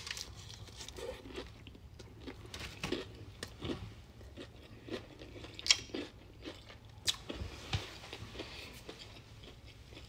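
Chewing and crunching a mouthful of crispy fried chicken, with irregular crackles of the fried breading and a few sharper crunches about halfway through.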